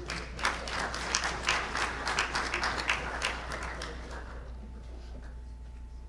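Audience applauding with many separate hand claps, dying away about four seconds in.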